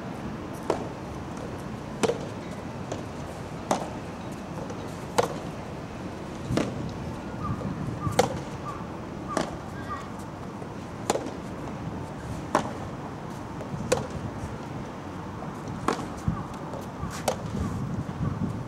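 Soft tennis rally: the soft rubber ball is struck back and forth by rackets, giving a sharp pop about every one and a half seconds, about a dozen hits in all, with fainter bounces in between.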